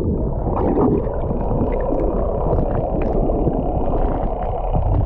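Muffled underwater sound from a phone microphone held below the sea surface: a dense low rumble and gurgle of moving water, with faint scattered ticks and pops.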